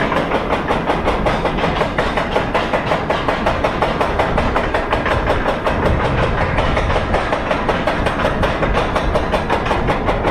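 Roller coaster train running on its track, heard from the front row: a loud, steady, rapid clatter that repeats evenly.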